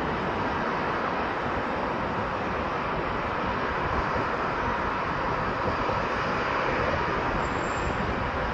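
Boeing 737-800 airliner landing: a steady jet rush from its engines as it flares and touches down, with no distinct changes in level.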